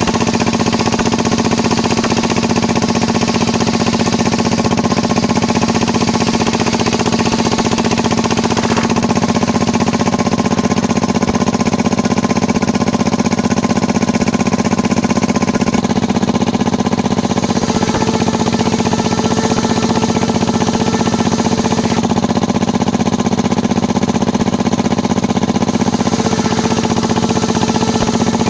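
Small homemade circular sawmill (serkel) running steadily: a loud, constant machine drone with an even pitch, whose higher tones shift a few times.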